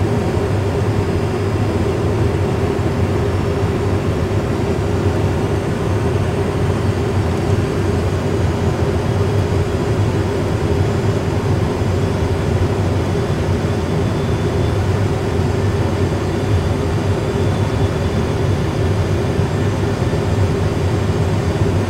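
Steady cockpit drone of an Airbus A320 full flight simulator on a single-engine approach: constant simulated airflow and engine noise with a low hum, unchanging throughout.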